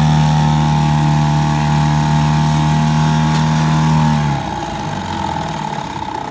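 Small Johnson 1.2 hp outboard motor running steadily under way. About four seconds in it is throttled back, and its note drops in pitch and gets quieter.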